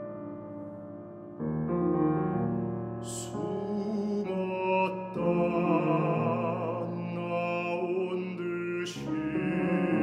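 Baritone singing a Korean art song in operatic style, with vibrato, over piano accompaniment. The piano plays alone at first, and the voice comes in about three seconds in.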